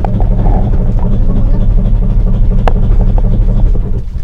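Outrigger boat's engine running steadily, a loud low drone that drops away sharply about four seconds in.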